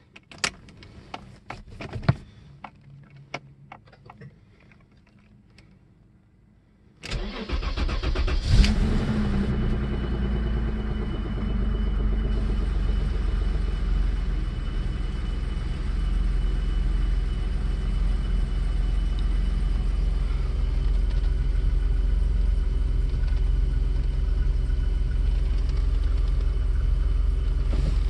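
BMW M30 straight-six of a 1990 535i, original with 260,000 miles, cold-started after sitting 30 days. A few clicks come first, then about seven seconds in the starter cranks briefly and the engine catches, settling into a steady idle.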